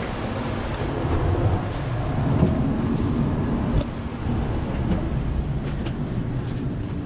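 Steady low rumble and hum inside a Shinkansen bullet-train carriage, swelling slightly in the first few seconds, with a few faint light clicks.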